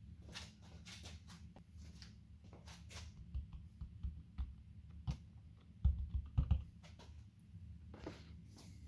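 Scattered small clicks and taps of a hand handling a subwoofer and pressing on its dust cap, over a low steady hum, with a few louder dull thumps about six seconds in.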